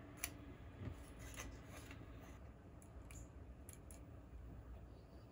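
Faint, scattered small clicks and handling noise from hands working on an opened Nokia 8.1 smartphone and wiping it with a cloth.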